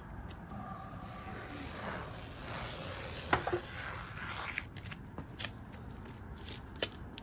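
Light scraping and a few scattered sharp clicks from hand work caulking a taped seam on a camper shell.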